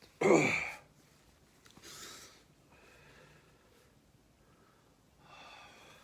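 A man's loud hiccup, a sudden voiced gulp that drops in pitch, followed by heavy breathing. The hiccups are brought on by the heat of a Carolina Reaper hot sauce.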